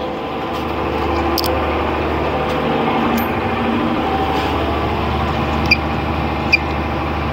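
A fishing boat's inboard diesel engine running steadily, slightly louder after the first second. Two short sharp clicks come near the end, about a second apart.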